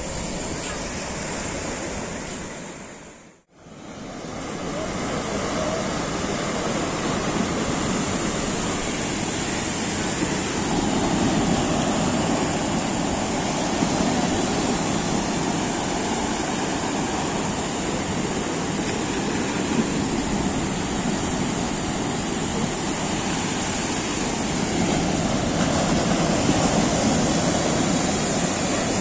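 Sea surf breaking on a beach: a steady rush of waves that drops out for a moment about three seconds in, then continues.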